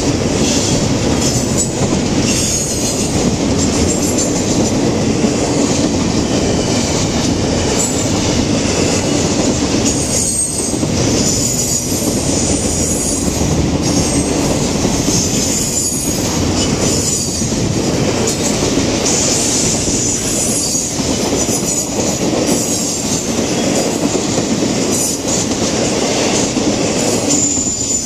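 Double-stack intermodal freight train rolling past: steady loud noise of steel wheels on rail, with clacking over the rail joints and high-pitched wheel squeal that comes and goes.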